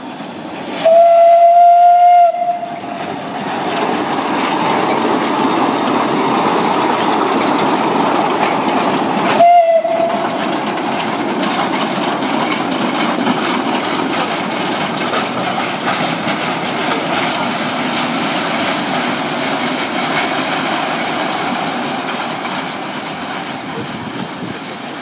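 Small narrow-gauge steam locomotive sounding its steam whistle, one long blast about a second in and a short toot near ten seconds. Between and after the whistles the engine and its loaded tipper wagons run past with a steady rushing and rattling that fades near the end as the train moves away.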